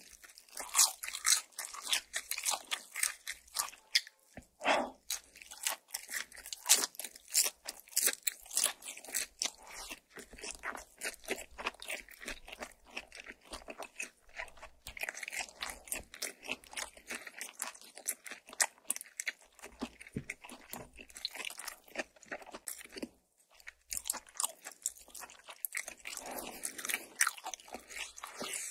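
Close-miked chewing of crispy air-fried makchang (grilled intestine), a dense irregular run of wet crunches and mouth clicks.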